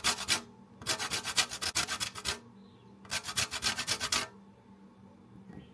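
A calamansi (Filipino lime) rubbed against a kitchen grater to take off its zest. The quick rasping strokes come in runs, about eight a second, and stop a little over four seconds in.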